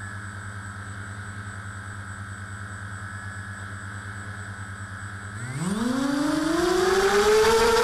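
HobbyKing 250 quadcopter's four brushless motors and propellers, armed and idling with a steady hum and a high electronic whine. About five and a half seconds in, they spool up, the whine rising steadily in pitch and getting louder as the quad throttles up to take off.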